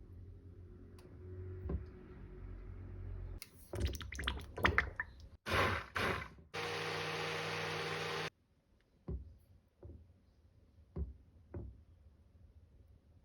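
Kitchen handling sounds from making shio koji: a quick run of clicks and knocks, a short burst of noise, then a steady rush of water for under two seconds about seven seconds in. Four separate knocks of a container follow.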